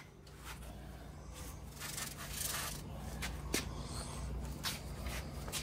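Scattered light clicks and scrapes of metal being handled on a sand car's steel tube frame, over a steady low hum.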